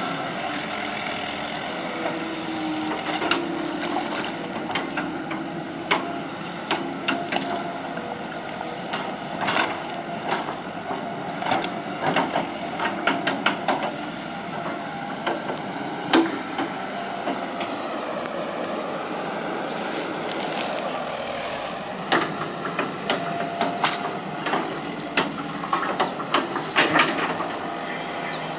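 Hitachi EX120 hydraulic excavator working: its diesel engine runs steadily under clusters of sharp knocks and clanks from the machine at work.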